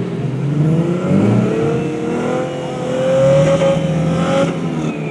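Land Cruiser engine revving hard under load as the stuck SUV spins its wheels in deep sand during a tow-strap recovery. The revs climb steadily for a few seconds, then ease off near the end.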